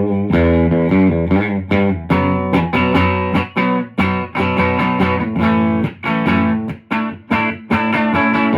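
Electric guitar, a Fender Jazzmaster on its bridge pickup, played loud through a Supro Thunderbolt MkII amplifier, strumming and picking chords and notes with a lightly overdriven tone, with a few short breaks between phrases.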